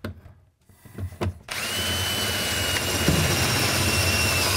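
Cordless drill boring an auger bit through a wooden stud. After a short pause with a couple of light knocks, the drill starts about a second and a half in and runs steadily with a high whine. The bit is cutting hard, which the user puts down to a dull bit that needs sharpening.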